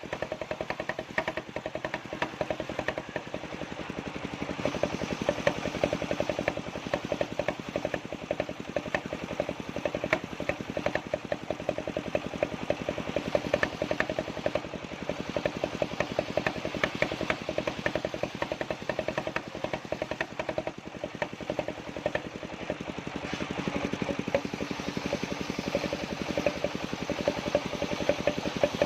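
Engine of a circular-saw sawmill running steadily, with a fast, even clatter of firing pulses.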